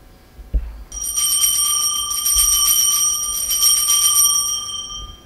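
Altar bells shaken continuously for about four seconds, a bright high ringing that fades near the end, after a single knock. It is the Mass bell rung at the elevation during the consecration.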